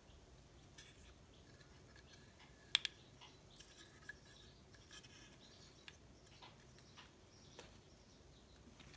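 Faint clicks and light taps of small wooden craft pieces being handled and set down, with a sharper double click about three seconds in.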